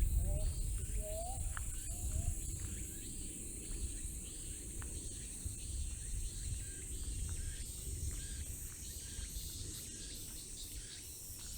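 Night insects trilling in summer: a steady high buzz with a regular pulsing chirp beneath it, over a low rumble.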